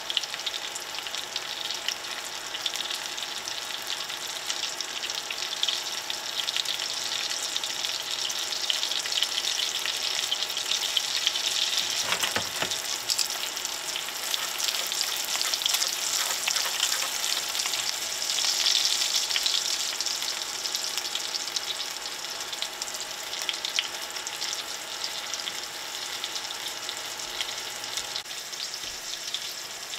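Scallops searing in a stainless steel skillet, the bubbling fat sizzling and crackling steadily, with one brief knock about twelve seconds in.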